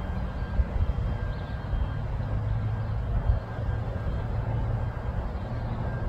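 Honey bee swarm in flight: many bees moving through together, giving a steady low hum.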